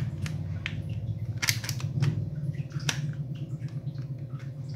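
Irregular sharp plastic clicks and scrapes of a spring airsoft SIG P226 pistol's slide being worked onto its frame by hand, over a steady low hum.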